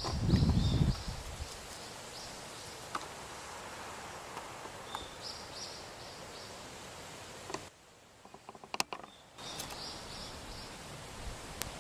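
Outdoor ambience with runs of short, high chirps repeating in quick rows, over a steady background hiss. A loud low rumble fills the first second, and just after the middle the sound drops out briefly, broken by a few sharp clicks.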